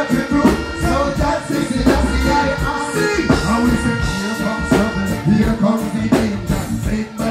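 Live reggae music played through a large concert sound system: a band keeping a steady drum beat, with a male voice singing over it.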